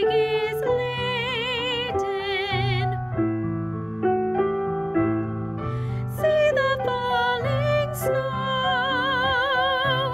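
A woman singing a choir melody over piano accompaniment, holding the long notes with vibrato.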